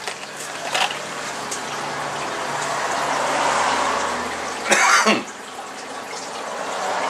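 A steady hiss that swells and then eases, with a single loud cough about five seconds in.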